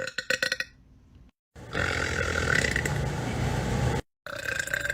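A woman burping: a short croaky burp at the start, then a long rough belch lasting about two and a half seconds from about one and a half seconds in.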